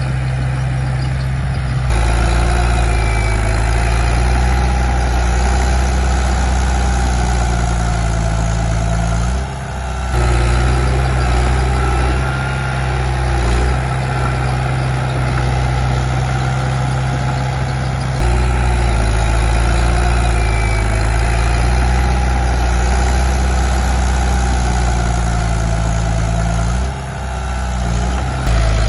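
Diesel engine of a Komatsu D31P bulldozer running steadily while it pushes soil, its pitch and loudness shifting every several seconds, with brief drops about ten seconds in and again near the end.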